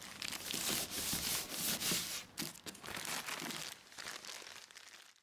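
Sealed sample mailing bags crinkling and rustling as they are folded and pressed flat by hand, dense in the first couple of seconds, then thinning out and fading near the end.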